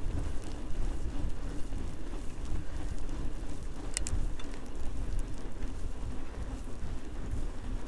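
Outleap Hercules fat bike's wide tyres rolling over snow while riding, a steady rumbling hiss mixed with wind buffeting the handlebar-mounted camera's microphone, with a sharp click about four seconds in.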